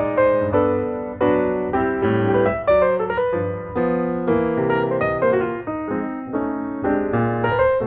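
Background piano music: a steady run of piano notes and chords.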